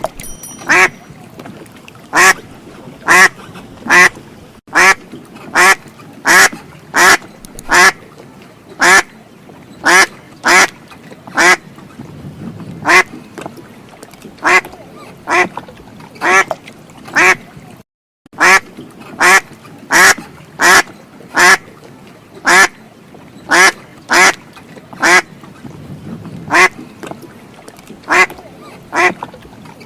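A duck quacking over and over: short, loud quacks about once a second, with a brief gap of silence a little past the middle.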